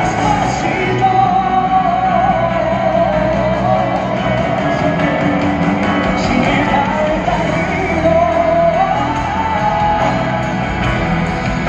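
Live pop-rock concert in an arena: a band playing with a voice singing a wavering melody over it, heard through a phone microphone high in the stands.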